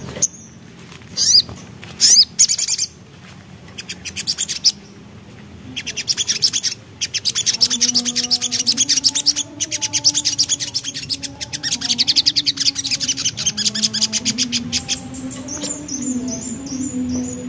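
Crimson sunbird (sogok ontong) singing: a few sharp rising chirps, then long, rapid runs of high ticking notes in a fast chattering trill.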